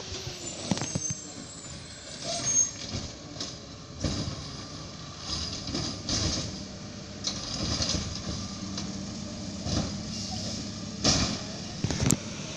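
Mack LR garbage truck with a McNeilus Zero Radius automated side-loader body, its engine running steadily while the arm lifts and dumps a wheeled trash cart. A string of irregular bangs and knocks comes from the cart and body.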